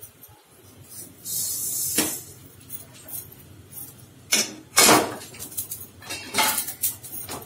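A handful of white sesame seeds poured into a hot aluminium kadai with a short hiss, followed by a few sharp metallic clinks and knocks as a metal pan gripper takes hold of the kadai.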